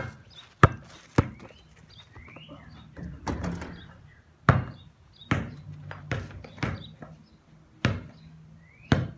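A basketball bouncing on hard ground: three quick, sharp thuds of dribbling, then a shot at the hoop and a scatter of bounces as the ball comes down and rolls off. Birds chirp faintly in the background.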